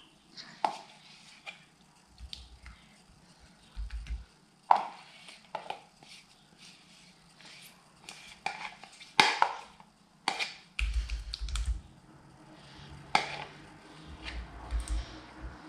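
Kitchen utensils and containers being handled: irregular sharp clicks and taps, with several stretches of dull low thumps.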